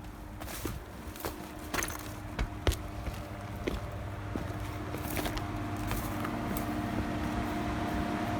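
Footsteps on rough ground, irregular crunches about once a second, over a steady mechanical hum that slowly grows louder.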